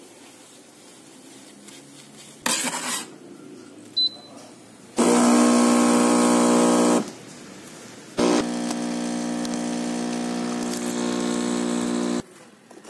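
Home espresso machine's pump humming steadily in two runs: about two seconds, a pause of about a second, then about four seconds while the shot pours. Before it come a short clatter and a single click.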